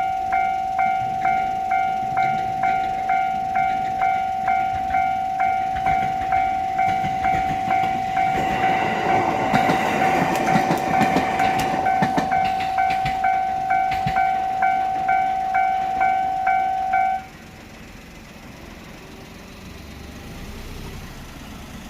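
Japanese level-crossing warning bell ringing in a steady electronic 'kan-kan' about twice a second, as a train runs over the crossing with a rush of wheel noise and clicks over the rail joints for several seconds midway. The bell then cuts off suddenly, leaving quiet background.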